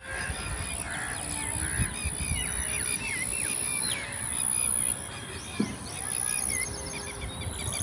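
Open-air countryside ambience of many small birds chirping and calling in short, overlapping notes, over a steady high-pitched whine.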